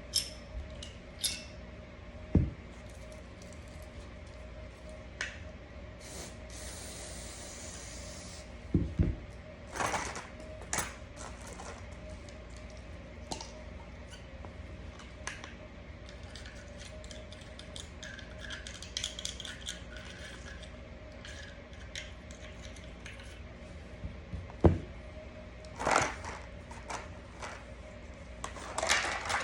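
Scattered metallic clicks and knocks of a Smith & Wesson M&P 9mm pistol's parts being handled during cleaning. There is a short spray hiss about six and a half seconds in, and a faint steady hum underneath.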